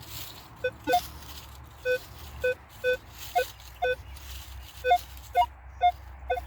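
Metal detector sounding off on a buried target as the coil is swept back and forth: a dozen or so short beeps, about two a second, switching between a lower and a higher tone, which the detectorist takes for a promising signal.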